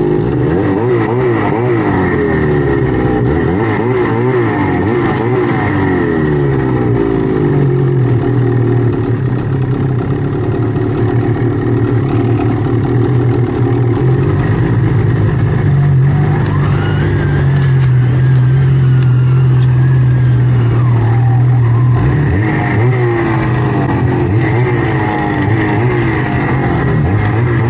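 Snowmobile engine running under a changing throttle. Its pitch wavers up and down at first, holds steadier through the middle, then rises and falls again near the end.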